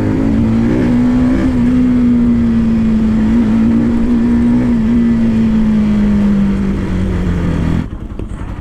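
Motorcycle engine running at a steady cruising speed, its pitch sagging slowly. Near the end the sound drops suddenly as the rider lets go of the throttle.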